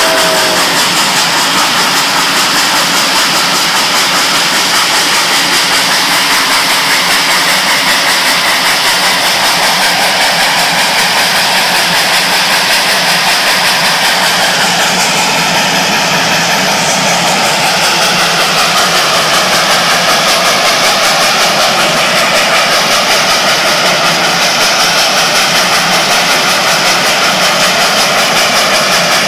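Loud, steady rush of wind and road noise in a car pacing Reading & Northern steam locomotive 425. The last of a multi-note steam whistle cuts off about half a second in.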